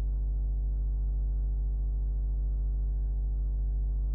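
Steady low electrical hum, a stack of even overtones strongest at the bass end, holding unchanged with no other sound over it.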